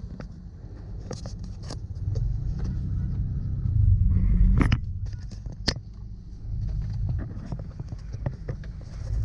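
A vehicle on the move in road traffic: a steady low engine-and-road rumble, louder about four seconds in, with scattered sharp clicks and knocks.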